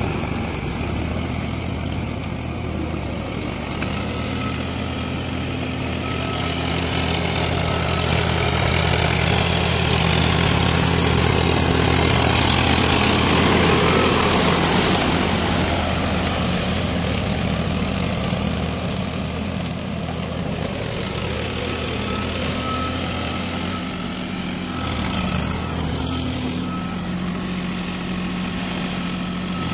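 Diesel tractor engine running steadily while pulling a rotavator through a flooded paddy field. It grows louder as the tractor passes close by around the middle, then fades as it drives away.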